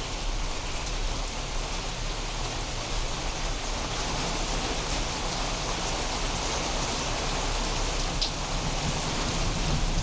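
Steady, heavy rain falling during a thunderstorm, an even hiss of drops on surfaces. Near the end a low rumble of thunder begins to build under the rain.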